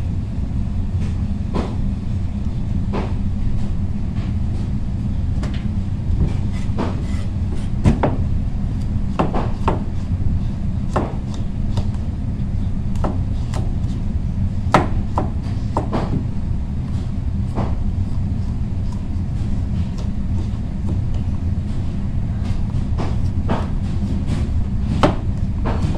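Chef's knife slicing through a raw squash and knocking on the cutting board, in irregular knocks about one a second, over a steady low hum.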